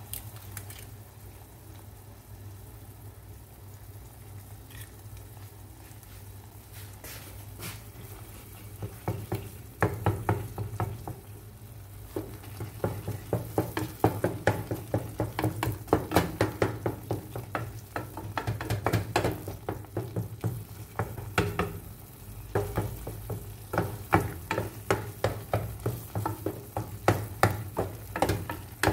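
Eggplant, tomato paste and egg frying in oil in a pan, sizzling softly, then a wooden spatula stirring and scraping through the mixture in quick strokes from about a third of the way in. A steady low hum lies underneath.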